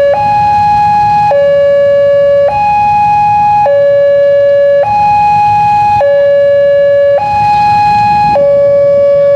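Railway level-crossing warning siren, a newly fitted unit, sounding a steady two-tone alternation of about 840 Hz and 560 Hz, each tone held a little over a second. It signals that the barrier is down and a train is approaching.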